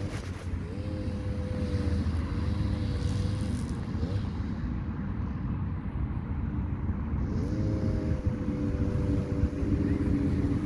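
Motor engine running steadily as a low hum, its pitch rising briefly about half a second in and again about three quarters of the way through.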